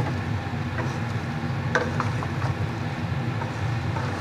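A spoon stirring ridge gourd and potato pieces in an aluminium pot, giving a few light clicks and scrapes against the metal, over a steady low rumble.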